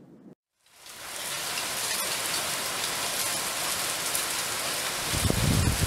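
Heavy rain pouring onto a paved yard and puddles, a dense steady hiss that fades in about a second in. A low rumble joins it near the end.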